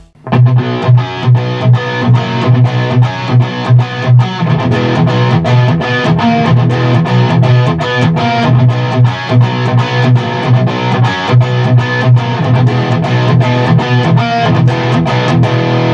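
PRS electric guitar played through an amplifier: a quick, evenly picked run of notes at about four a second over a steady low note.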